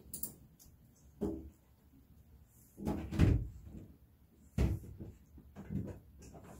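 A handful of short, irregular soft knocks and thumps spread over a few seconds, the loudest cluster about three seconds in.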